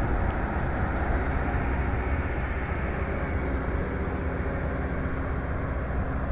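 Komatsu PC205 hydraulic excavator's diesel engine running with a steady low rumble as the machine is moved off a low-bed trailer.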